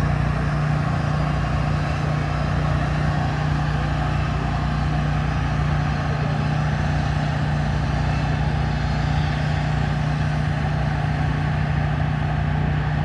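An engine running steadily at one constant speed, a strong low hum that does not change.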